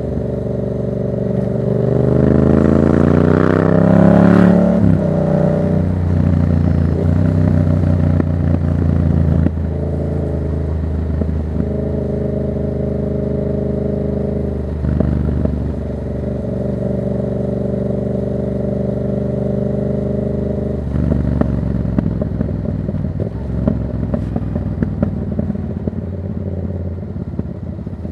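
Yamaha MT-07's parallel-twin engine through a Black Widow exhaust with no dB killer, revving up hard with a steadily rising pitch for a few seconds, then dropping off. It then runs at a steady pitch with a few brief dips, and settles lower near the end amid scattered sharp ticks.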